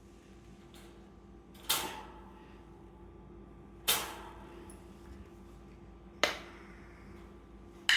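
Four sharp knocks about two seconds apart, each dying away quickly, over a faint steady hum.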